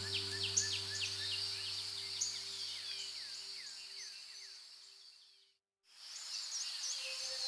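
Birds chirping in quick downward-sweeping calls over a steady high insect drone, with a low sustained music drone fading out in the first half. The sound cuts out completely for a moment a little before six seconds in, then the birds and insect drone return.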